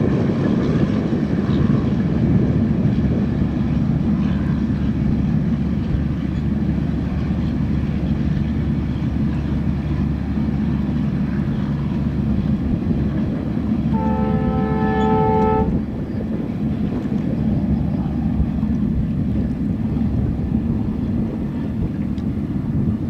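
Steady low drone of a boat engine. About 14 seconds in, a diesel locomotive's two-tone horn sounds once for nearly two seconds, heard across the water.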